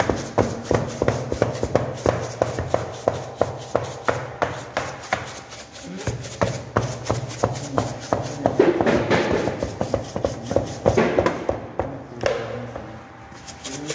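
Quick, even tapping, about five taps a second, as Barbari dough is docked and pressed on a metal baking tray, over a steady low hum of bakery machinery. The tapping stops near the end.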